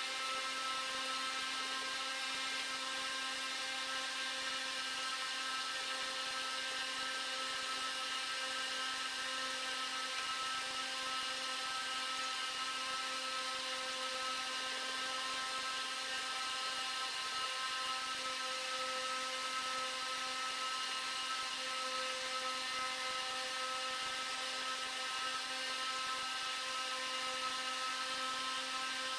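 Steady whirring hum of a small motor, with a constant pitch that does not change.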